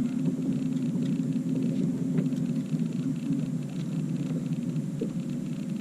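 Steady low rumble of a boat's motor running.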